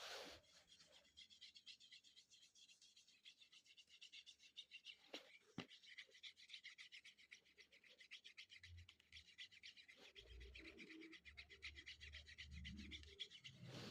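Faint, rapid scratchy rubbing: a water pen stroked back and forth over the page of a magic water colouring book.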